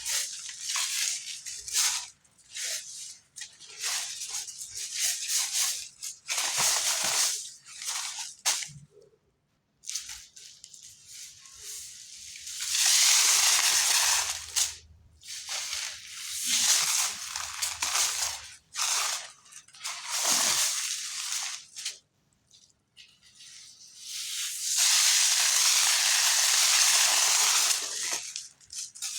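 Glittery cement chunks crumbling and crunching in a series of gritty, irregular bursts, with two longer stretches of steady crumbling, one midway and one near the end.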